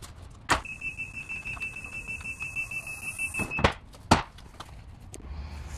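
Scissor car lift coming down, its lowering warning beeper giving a rapid high-pitched beeping for about three seconds. A knock comes as the beeping starts and another as it stops, then a louder, sharp knock about half a second later.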